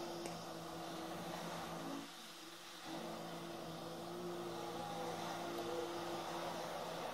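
Steady electric fan whir with a low two-tone hum, from a 2018 Mustang GT sitting with the ignition on and the engine off while its computer is being flashed; it drops out briefly about two seconds in.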